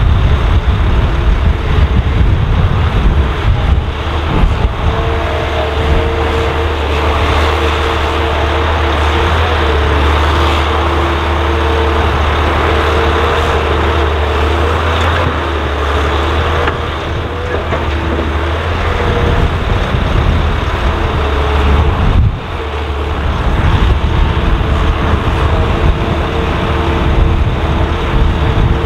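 Volvo EC300DL excavator working while it loads a Volvo A25E articulated dump truck: a steady, loud diesel engine hum under load with a higher whining tone over it. The level dips briefly about three quarters of the way through.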